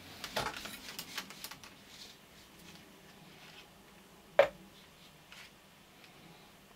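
Solid candle wax being crumbled by hand and pried apart with a knife: small crackly rustles for the first two seconds, then a sharp single crack about four seconds in and another near the end.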